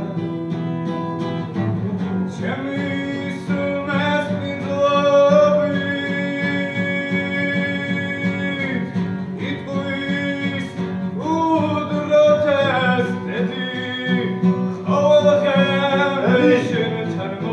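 Acoustic guitar played live with a man singing over it in long held notes, one drawn out for several seconds midway.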